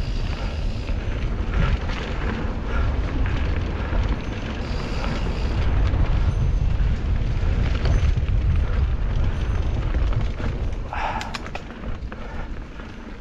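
Mountain bike descending a dirt singletrack, with wind buffeting the camera's microphone in a steady low rumble over the tyres' noise on the dirt. A brief rattle of clicks and a short squeak come about eleven seconds in.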